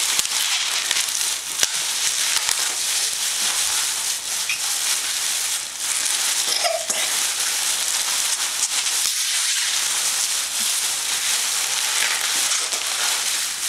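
Plastic bubble wrap being handled and crinkled steadily, with a few sharper pops of bubbles bursting.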